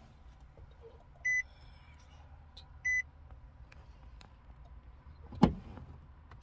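Two short electronic chimes from a Nissan's dashboard, about a second and a half apart, as the ignition is switched on, then a single loud clunk near the end as the key is turned to start. The car has a weak battery.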